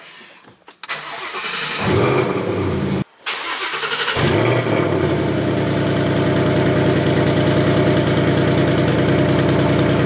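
Supercharged 2019 Ford Mustang GT's 5.0 V8 being started: it cranks and fires about a second in, flares up, and from about four seconds in settles into a steady idle. A brief dropout interrupts it about three seconds in.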